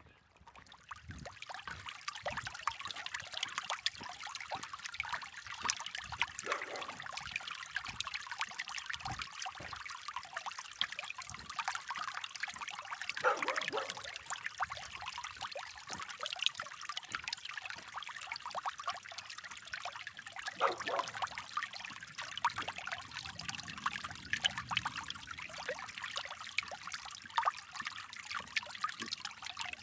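Creek water trickling and babbling over stones, a steady bright splashing that comes up about a second in and carries on without break.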